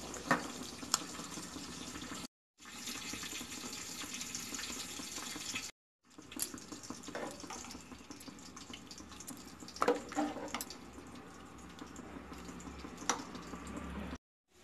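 A steel spoon stirring and lifting thick chana dal curry in a steel pot, with a few sharp clinks against the pot over a steady hiss.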